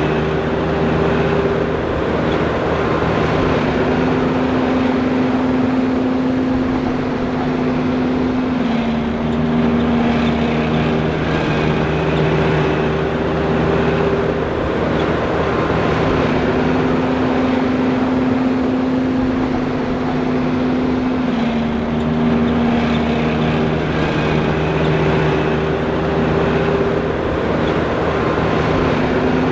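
John Deere 5820 self-propelled forage harvester running steadily, engine and driveline droning with a few steady whining tones that shift slightly in pitch every few seconds.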